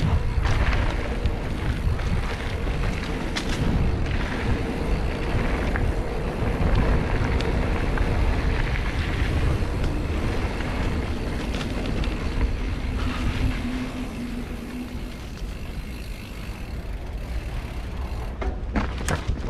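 Riding noise from a Nukeproof Scout 290 hardtail mountain bike rolling over a dirt trail: tyre rumble and rattles from the bike under heavy wind rumble on the microphone, with a run of sharp clicks near the end.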